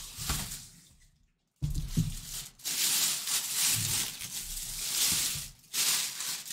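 Clear plastic bag crinkling and rustling as a full-size football helmet is pulled out of it, in several bouts, with the sound cutting out completely for about half a second a little after one second in.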